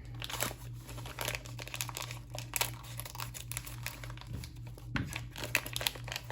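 Foil wrapper of a trading-card pack being crinkled and torn open by hand, in quick irregular crackles, over a steady low hum.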